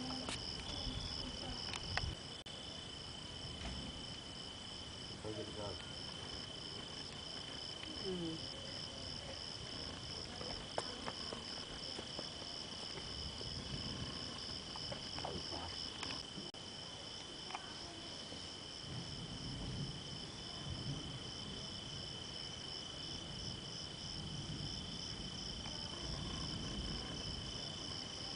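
Crickets chirring in a steady chorus: a rapid, evenly pulsing high trill over a second, steadier thin high tone, with no pause.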